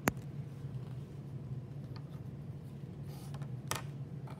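Steady low room hum with one sharp click just after the start, then a faint click and a couple of short rustles near the end.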